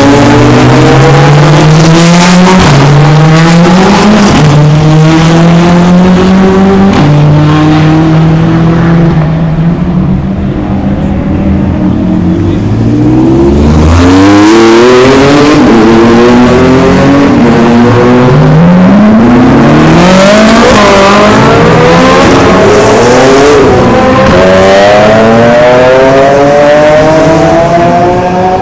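Several race cars accelerating hard out of the pit lane one after another, their engines revving up through the gears with overlapping rising sweeps and upshifts. In the first seconds the engine notes hold steadier, stepping between levels.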